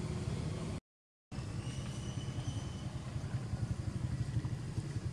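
Steady low rumbling outdoor background noise with no distinct event. It cuts out completely for about half a second, a second in, where the footage is edited.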